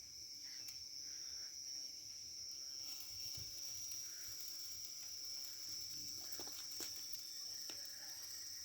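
Crickets chirring: a steady, continuous high-pitched trill, with a few faint clicks in the second half.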